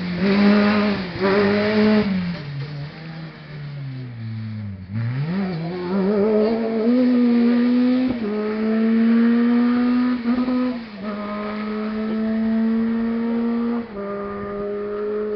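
Rally car engine passing close at high revs, then its note falling as it slows. It accelerates away up through the gears: three rising pulls, each cut back sharply at an upshift about three seconds apart, fading slowly with distance.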